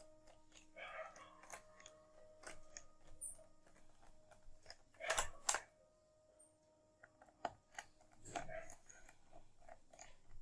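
Faint clicks and short scrapes of a screwdriver driving and tightening the bottom-cover screws of a Lenovo Ideapad 330 laptop, with two louder clicks about halfway through.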